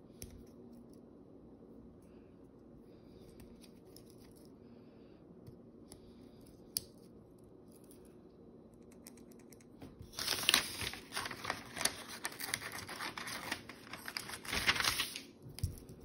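Leatherman Squirt PS4 keychain multitool being handled: light metal clicks as its small tools are opened and closed. About ten seconds in, a few seconds of dense scratchy clicking and rustling follow, then a couple of last clicks.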